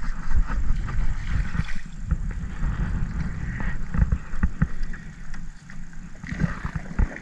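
Wind buffeting the microphone as a low rumble, with scattered short knocks and bumps against the aluminum jon boat.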